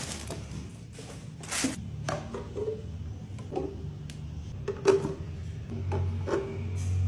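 Transparent plastic airtight storage canister being handled: irregular sharp plastic clicks and knocks, several with a short hollow ring.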